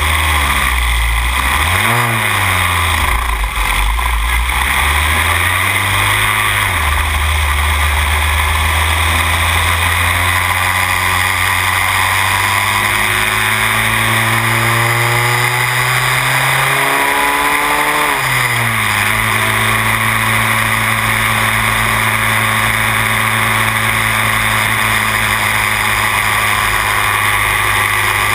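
Van Diemen Formula Renault racing car's engine heard from the cockpit, with wind hiss over it. In the first few seconds the revs rise and fall quickly twice. The revs then climb slowly for several seconds and drop sharply about 18 seconds in, after which the engine runs at steady revs.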